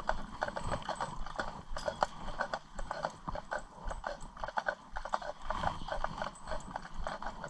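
Hooves of a pair of Clydesdale horses clip-clopping on a tarmac road as they pull a cart, a steady run of sharp, uneven hoof strikes.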